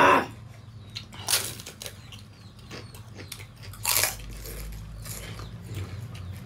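Close-miked eating of pani puri: crisp puri shells crunching and chewing mouth noises, with two louder bites about a second in and about four seconds in, and small wet clicks between them.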